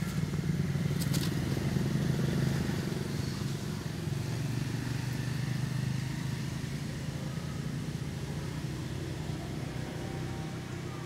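A motor vehicle engine's low, steady rumble that slowly fades, with a couple of sharp clicks about a second in.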